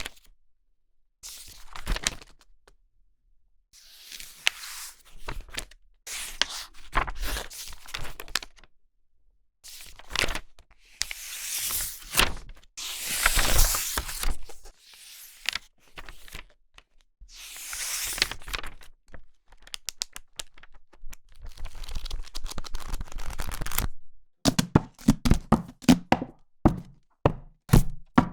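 Paper pages of a book being turned and handled: a series of separate papery swishes and rustles, one every second or two. In the last few seconds comes a quick run of sharp taps and light thumps.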